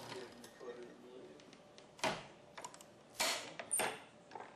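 Hoover Automatic Muller running as its glass plates grind pigment into resin to make a dispersion, giving a few sharp mechanical clicks and knocks, the loudest about two seconds in and just after three seconds.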